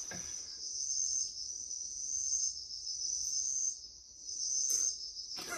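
Recorded chorus of early-autumn crickets trilling: a steady, high, shimmering chirr that fades briefly about four seconds in.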